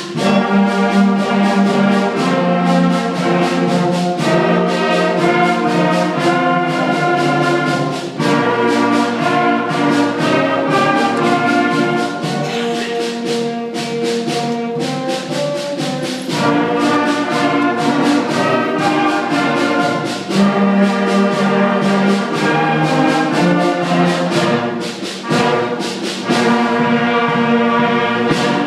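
Sixth-grade school concert band of flutes, clarinets and brass, French horn included, playing a piece together; the music stops at the very end.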